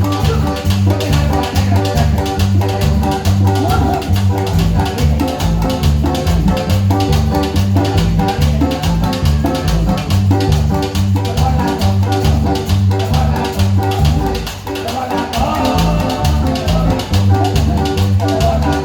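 Latin American band music played instrumentally: plucked guitar over a bass line with a steady, even beat, without singing.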